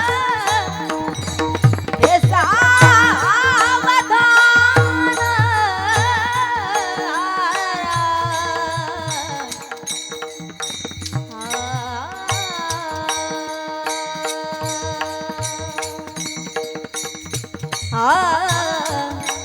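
Marathi kirtan devotional music: long, ornamented melodic notes held over a steady drone, with hand-drum strokes beating mostly in the first half and thinning out later.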